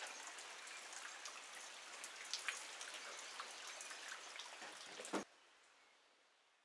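Rain falling, with many separate drop impacts heard through a steady hiss. It cuts off suddenly about five seconds in.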